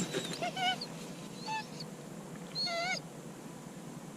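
German shorthaired pointer whining in three short, wavering bursts while held on the command to stay in place. A few sharp clicks come right at the start.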